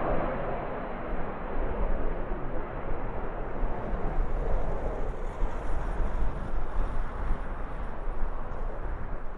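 Cessna 525A Citation jet's twin turbofan engines as it takes off, a steady jet noise that swells and eases, mixed with gusty wind rumbling on the microphone.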